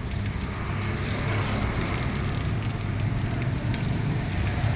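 Heavy rain pouring down as a steady hiss, with scattered drop splashes. A vehicle engine runs low underneath.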